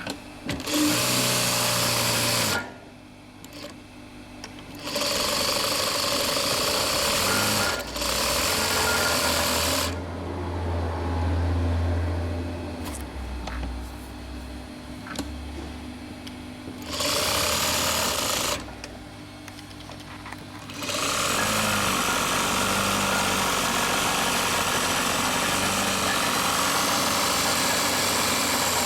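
Juki LZ-2280 industrial zigzag sewing machine stitching in several bursts with short pauses between them, the last and longest run lasting about eight seconds near the end.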